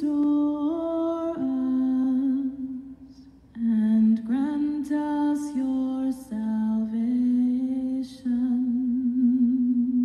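A single voice singing unaccompanied: slow, held notes with a light vibrato, with sung words and breaks for breath about three and eight seconds in.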